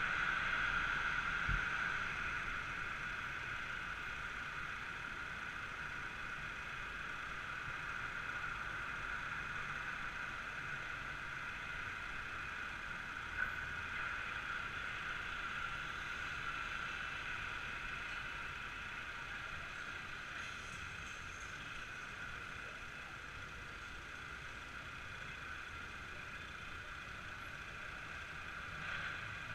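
Steady, muffled city street noise of passing traffic, easing in the first few seconds as the rider slows to a stop, then level while waiting at the lights, with one faint click about 13 seconds in.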